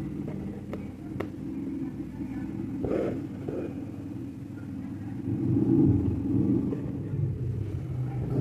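A low, steady rumble like a running engine, with a few faint clicks in the first second or so.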